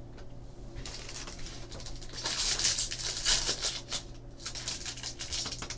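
Foil trading-card pack wrapper crinkling and rustling as it is handled and pulled at to open it. The crinkling is loudest in the middle and eases toward the end.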